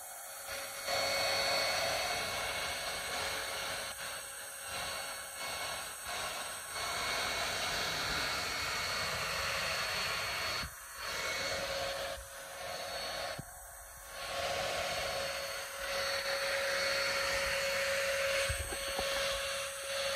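Handheld electric hair dryer running steadily, blowing air over a baby monkey's fur, with a whirring hiss and a steady hum. The sound dips briefly a few times, most clearly around the middle, as the dryer is moved.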